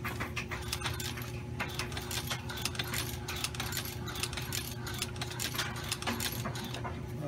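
Hand-cranked sewing machine being cranked: a continuous run of sharp metallic clicks from the needle and mechanism, several a second, over a steady low hum.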